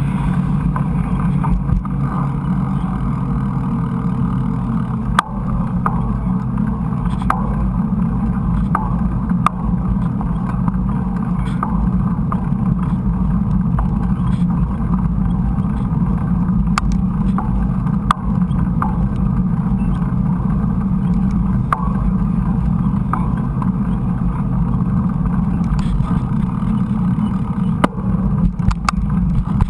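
Mountain bike riding on a dirt trail heard through an action camera: a steady low rumble of wind on the microphone and tyres on the ground, with scattered sharp clicks and knocks from bumps.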